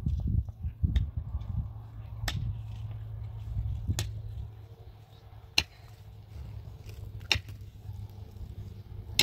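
Sharp knocks, about one every second and a half, over a steady low rumble.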